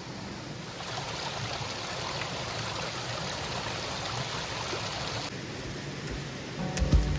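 A small forest stream flowing steadily. It grows louder about a second in and drops back about five seconds in. Music begins just before the end.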